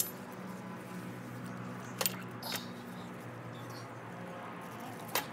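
Handling noise as titanium heat wrap is wound around a motorcycle exhaust pipe: a few sharp clicks and taps, at the start, about two seconds in, and near the end, over a steady low hum.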